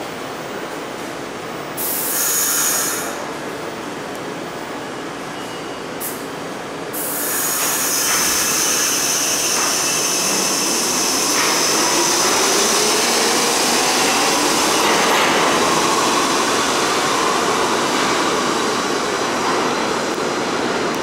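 An R68 subway train stands with two sharp hisses of air, then pulls out of the station: its traction motors whine, rising slowly in pitch as it gathers speed, over loud wheel-on-rail noise with a high wheel squeal.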